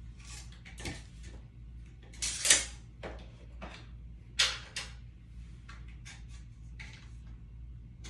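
Hands handling a small clip, weight and tape measure on a ceiling fan blade: scattered clicks and scrapes, with two louder clatters about two and a half and four and a half seconds in, over a low steady hum.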